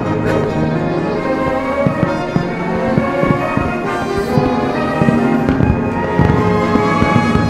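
Fireworks going off in a string of bangs over orchestral music with brass.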